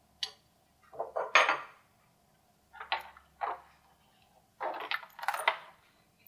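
Small metal hardware and hand tools clinking and rattling in several short bursts, the loudest cluster near the end, as connectors are fitted to a metal rack panel.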